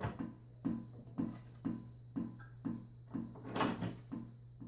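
Faint background music with a steady beat, about two beats a second, over a low steady hum.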